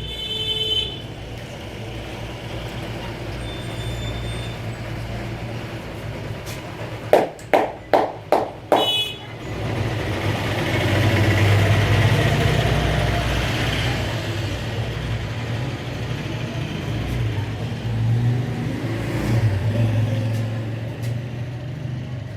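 Road traffic passing close by, engines rising and falling, with a short horn beep at the start and another about nine seconds in. About seven seconds in comes a quick run of five sharp hand slaps from the head massage.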